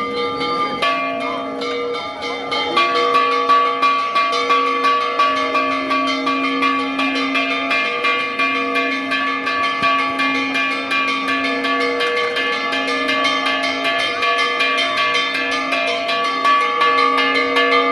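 Church bells ringing in a fast, continuous peal, several bells sounding together with quick repeated strokes.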